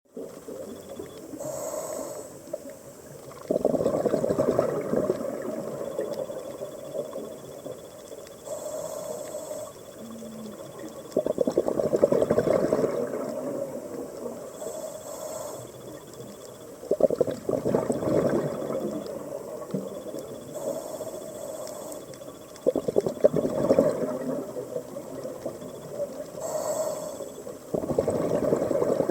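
Scuba diver breathing through a regulator, heard underwater: each short hiss of an inhale is followed by a longer, louder gush of exhaled bubbles. Five breaths come about six seconds apart.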